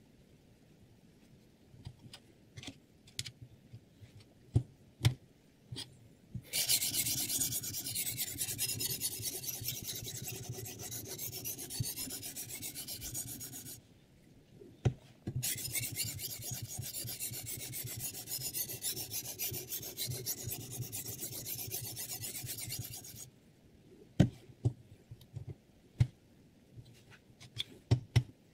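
A diamond sharpening stone on a guided-angle sharpener's arm stroked rapidly back and forth along a VG10 chef knife's edge: a dense, fast scraping in two long runs of about seven seconds each, with a short pause and a single knock between them. Light clicks and knocks come before and after, as the stone and arm are handled.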